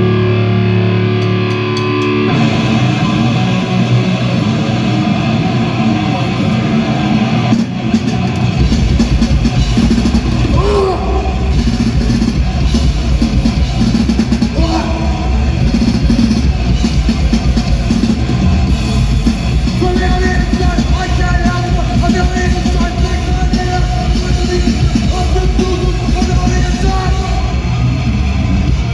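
Loud live band music: distorted electric guitar playing, with heavy bass and drums coming in about a third of the way through.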